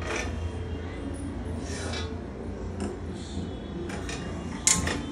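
A steel cooking pot clinking and knocking on a gas stove's grate as it is set down, with a sharp click near the end, over a steady low hum.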